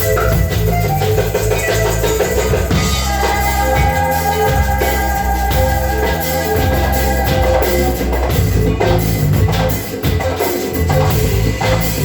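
Band music with a drum kit and a moving bass line, with held melody notes above.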